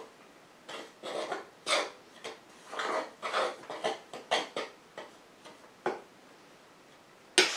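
Dry cornbread mix being stirred by hand in a stoneware mixing bowl: irregular short scratchy rustles of cornmeal against the bowl. A sharp click comes near the end.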